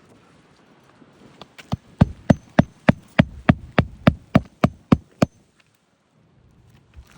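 Claw hammer driving a roofing nail through an asphalt shingle into the roof decking: a few light taps to start the nail, then about a dozen hard, evenly paced blows, roughly three a second.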